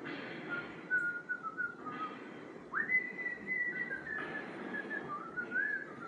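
A person whistling a tune: a thin line of held and sliding notes, with a quick upward slide to a longer held note about three seconds in.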